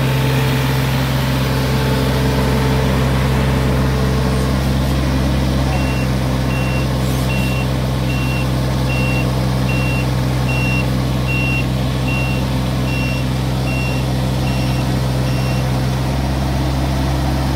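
John Deere 35D mini excavator's diesel engine running steadily. About six seconds in a high-pitched beeping alarm starts, roughly four beeps every three seconds, and stops shortly before the end.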